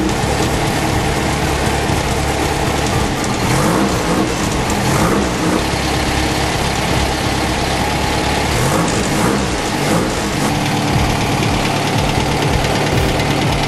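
Rebuilt Volkswagen 1600 single-port air-cooled flat-four engine running on a test bench. It idles steadily and is revved up and back down a few times, about four seconds in and again around nine seconds in.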